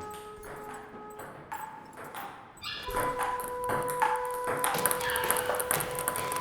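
A steady ringing tone over scattered clicks and ticks. About three seconds in the tone moves to a new pitch and the sound grows louder, with denser clicking.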